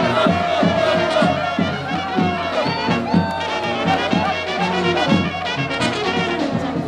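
Balkan brass band music with a steady beat, trumpets and trombones playing the tune.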